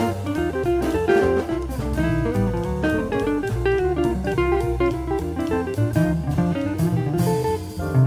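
Jazz guitar playing a quick line of single notes over bass and a drum kit, with a cymbal wash near the end.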